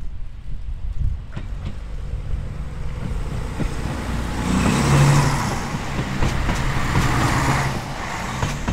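Danish Y-tog diesel railcar (Lynette type) running close past. Its engine hums steadily and its wheels rumble on the track, swelling to loudest about halfway through and easing off near the end, with a few sharp clicks from the wheels on the rails.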